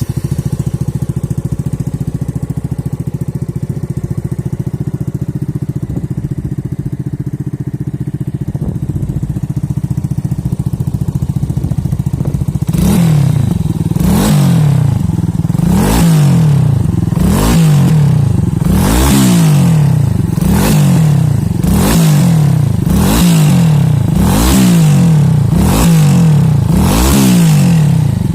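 Yamaha Fazer 250 (FZ25) single-cylinder engine through a Mexx aftermarket sport exhaust, idling steadily. About 12 seconds in, the rider starts blipping the throttle about once a second, each rev rising and falling quickly.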